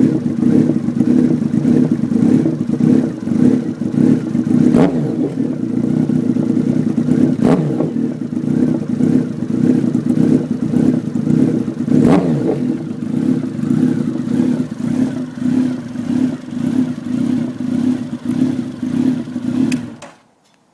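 Honda CB1300SF's inline four-cylinder engine running through an aftermarket Nojima PRO Titan titanium exhaust with a short silencer, a steady loud exhaust note with a few brief shifts in pitch. The sound cuts off abruptly near the end.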